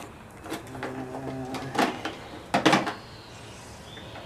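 Hands rummaging through a plastic caddy of paint supplies: tubes and tools clatter and knock against the plastic, with a few louder knocks about two and two and a half seconds in.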